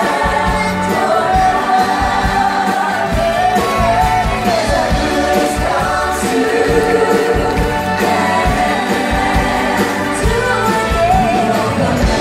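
Live band music with drums and a steady beat, and several voices singing a pop song together through microphones.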